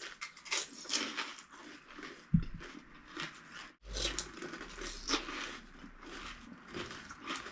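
Crisp panipuri shells crunching as they are bitten and chewed, a run of short, irregular crackles.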